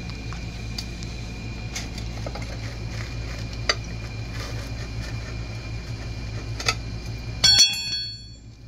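A steady low mechanical hum that cuts off suddenly near the end, at the same instant as a loud metallic clank that rings briefly and fades. A couple of light sharp taps come earlier.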